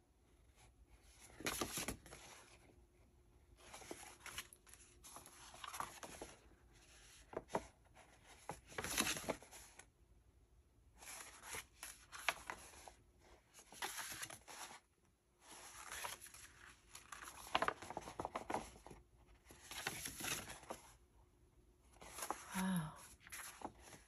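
Sheets of eco-dyed paper rustling and swishing as they are handled and turned over one after another, a rustle every second or so with brief pauses between.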